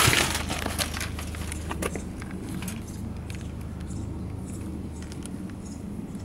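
A burst of plastic-sheet rustling and wire cage rattling right at the start as a wire live-trap holding a cat is handled, then scattered light clicks and rustles over a steady low hum.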